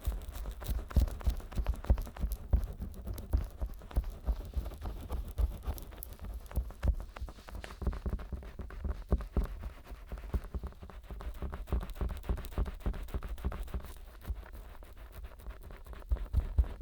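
Fingers rubbing and tapping close on the vaseline-slicked silicone ears of a 3Dio binaural microphone: a dense run of small crackles and soft thumps, easing off briefly near the end before picking up again.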